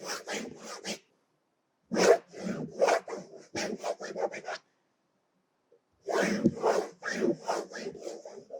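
Pen scratching across paper in quick back-and-forth strokes, in three spells separated by pauses of a second or so.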